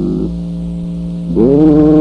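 A man singing solo, transferred from an old wire recording. His note ends just after the start, leaving about a second of steady hum, then he comes back in, sliding up into a long held note.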